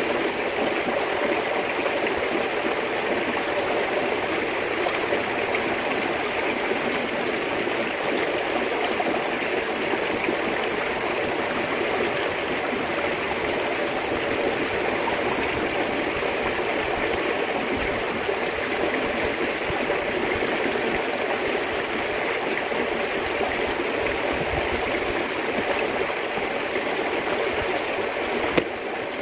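Steady rushing of running water, even throughout, with a single sharp click near the end.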